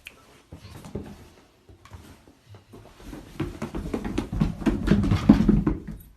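A dog's paws coming down stairs: a run of quick footfalls, scattered at first, then dense and loudest over the last few seconds.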